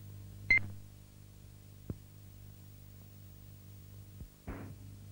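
Steady low electrical hum of an old film soundtrack transfer, with one short sharp pop carrying a brief high tone about half a second in, and fainter clicks and a short crackle later.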